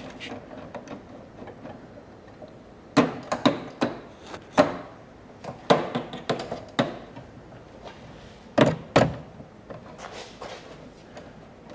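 Irregular hard knocks and clunks, as of parts and tools being handled and set down. They come in uneven clusters, with two of the loudest close together past the middle.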